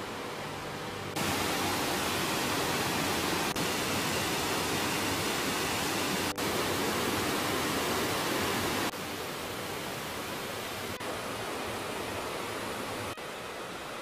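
Mountain stream rushing over boulders and small cascades, a steady hiss of water. It jumps louder about a second in, falls back sharply about nine seconds in, and drops a little again near the end.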